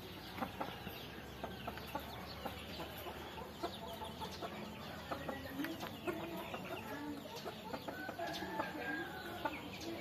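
A flock of chickens, roosters among them, clucking in many short, wavering calls, thickest in the second half, with scattered sharp clicks.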